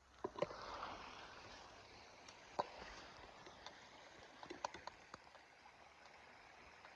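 Faint flow of a small river, with a few sharp clicks and knocks scattered through it.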